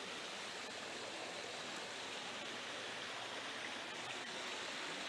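River water rushing steadily, an even hiss with no break.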